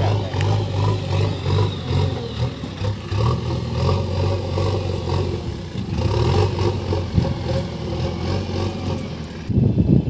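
Diesel engine of a JCB backhoe loader running as it drives with a load of soil in its front bucket, the engine note swelling and dropping in level as it works. A burst of low rumble comes near the end.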